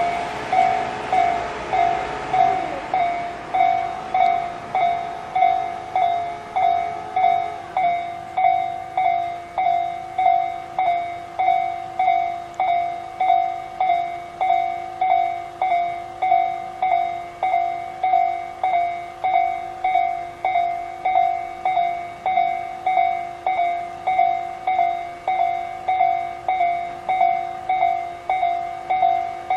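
Japanese level-crossing alarm sounding the slow electronic "pon-pon" tone of the Tojo type, about one and a half strikes a second, each ringing and fading. A passing train's rolling noise fades out over the first several seconds.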